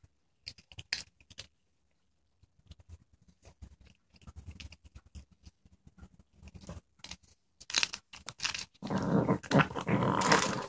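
A Chihuahua chewing a hard treat, making scattered small crunches and clicks. From about nine seconds in comes a loud, sustained dog growl, a dog guarding the treat from another dog.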